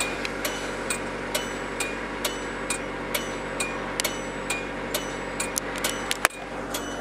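A 2008 Kia Rio's 1.6-litre four-cylinder engine idling fast, at about 1,700 rpm, just after a cold start at around -18 degrees, heard from inside the cabin. A light regular click sounds about twice a second, with one sharper click a little over six seconds in.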